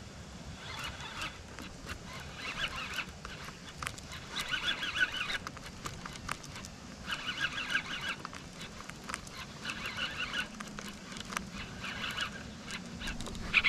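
Daiwa Z2020 baitcasting reel being cranked in short bursts of about a second each with brief pauses between, a stop-and-go retrieve of a wakebait, with a whirring gear sound on each turn.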